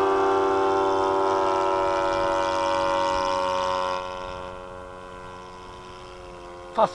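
Thunder Tiger 91FS four-stroke glow engine of an RC model plane running at high revs with a steady, buzzing tone. About four seconds in it grows fainter and drops slightly in pitch.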